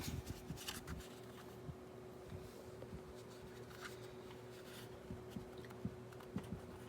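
Dreo Cruiser Pro tower fan running with a faint, steady hum, with scattered light clicks and rustles of handling over it.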